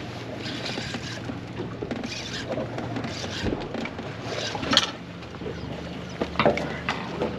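Boat engine running at a steady low hum, with scattered short splashy noises and a few sharp knocks, the loudest about two-thirds of the way in.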